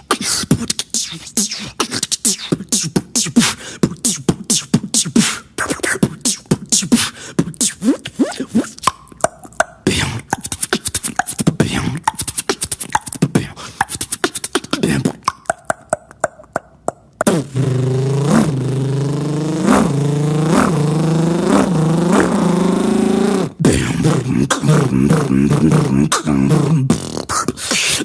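Beatboxer making vocal sound effects with the mouth: rapid clicks and percussive hits for most of the first half, then, about two-thirds of the way in, a continuous buzzing voiced sound whose pitch swoops up and down over and over.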